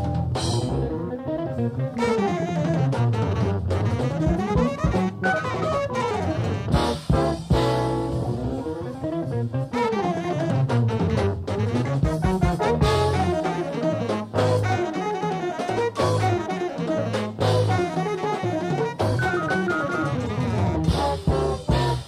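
Live jazz-fusion band (electric guitar, piano, saxophone, bass, drum kit and percussion) playing an up-tempo number, with fast melodic runs sweeping down and back up in pitch several times over the drums.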